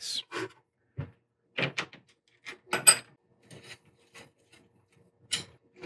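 Light metal clicks and clinks from a T-handle wrench and the jaws on a six-jaw lathe chuck as the jaws' set screws are started, about eight separate strikes spread out, one of them ringing briefly about three seconds in.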